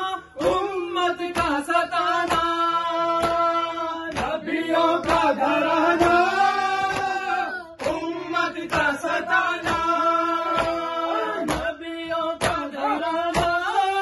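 Male voices chant a noha, a Shia mourning lament, with the lead reciter holding a long note in the middle. Through it runs matam, mourners beating their chests in time, a sharp slap about twice a second.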